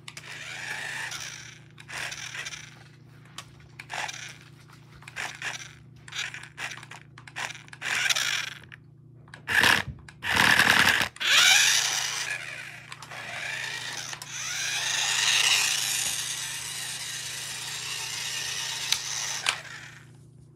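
Toy RC car's small electric motor whirring in short stop-start bursts as it drives, then in a longer run near the end, its whine rising and falling with speed. The loudest passage is about ten seconds in, as the car passes close by.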